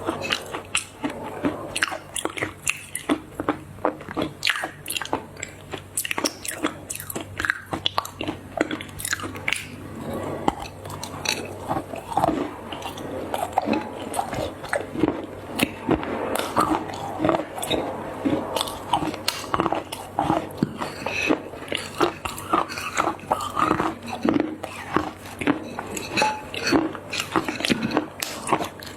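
Close-miked biting and chewing of crunchy stuffed chocolate: a dense run of sharp crunches and crackles, several a second.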